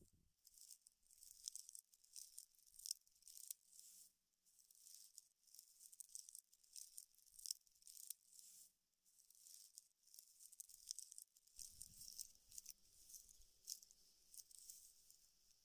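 Dry palm-sheath fiber rustling and crackling faintly as hands fold and roll the fibrous mesh, an irregular patter of small crisp crackles. A faint low rumble comes in about three-quarters of the way through.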